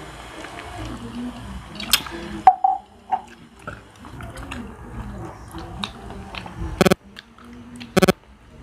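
Close-up eating sounds: chewing and mouth noises with scattered small clicks as fingers pick at the food, and two short, loud buzzy bursts near the end.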